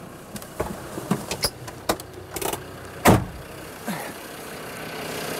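Knocks and clanks on the metal body of an off-road vehicle as someone climbs up onto its roof, with one heavy thump about three seconds in. A steady engine sound comes up near the end.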